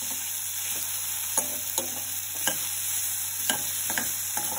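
Bottle gourd and dal stir-fry sizzling in a pan with a steady hiss, while a spoon stirs it and knocks against the pan about five times.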